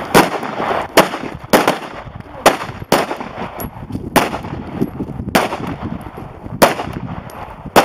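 Semi-automatic pistol fired shot by shot, about eight sharp reports spaced roughly a second apart at a slightly uneven pace.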